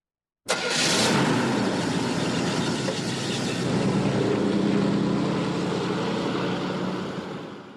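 Car engine sound effect: the engine bursts in abruptly about half a second in, runs steadily and loudly, then fades out near the end as the car drives away.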